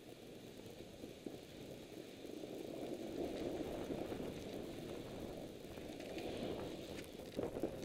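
Crackly rustling and crunching picked up by a helmet-mounted camera's microphone as its wearer climbs on foot up a steep snow slope. It grows louder a couple of seconds in, and a few sharp clicks come near the end.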